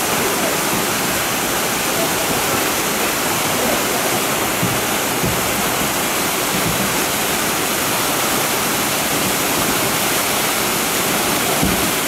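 Steady rushing of white water in a small rocky river swollen after heavy rain, pouring over boulders and rock drops.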